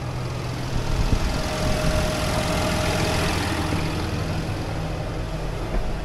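Deutz-Fahr 6175 TTV tractor engine idling steadily with the PTO off, and a thin steady whine for a couple of seconds starting about a second and a half in.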